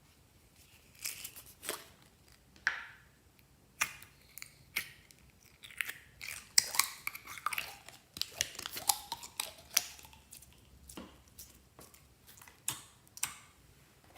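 Clear slime being squished and worked by hand, giving irregular wet clicks, pops and crackles. The sounds are busiest in the middle of the stretch.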